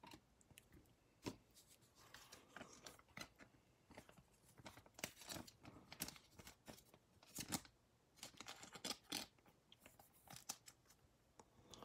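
Faint crinkling and scraping of a thin clear plastic penny sleeve as a Prizm trading card is slid into it, with scattered light clicks and rustles from handling.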